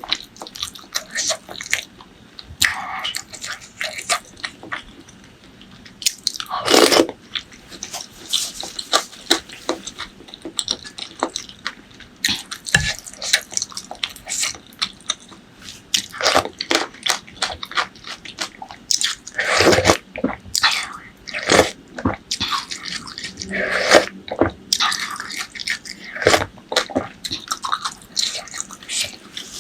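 Close-miked eating: wet chewing and biting, with many small sharp mouth clicks and several louder moments spread through.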